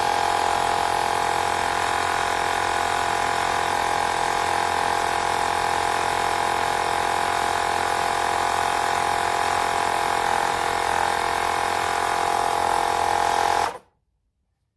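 Small electric compressor of a portable tire inflator running steadily with a constant whine, then cutting off abruptly near the end.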